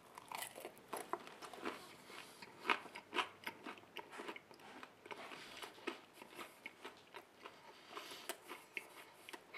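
A man chewing a mouthful of hot grilled-vegetable pizza: quiet, irregular wet smacks and clicks of the mouth, with a couple of louder ones about three seconds in.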